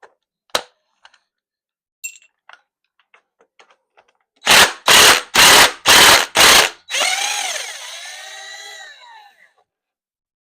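A power impact wrench fires in five short bursts about half a second apart, then its motor spins down with a falling whine. It is loosening the cylinder head bolts on a Ford 460 V8 being torn down.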